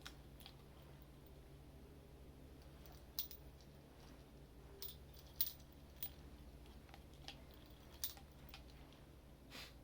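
Scattered light metallic clicks and taps from two old revolvers being handled, about eight in all and irregularly spaced, the sharpest about five and a half seconds in, over a low steady hum.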